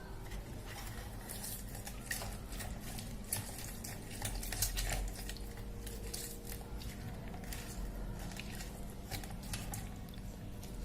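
Lemon being squeezed and worked on a citrus juicer: irregular small clicks, squelches and scrapes of the fruit against the juicer, over a faint steady hum.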